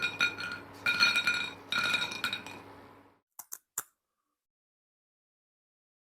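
Three ringing clinks of glass or metal being struck, a little under a second apart, each ringing on and fading. A few short clicks follow, then silence.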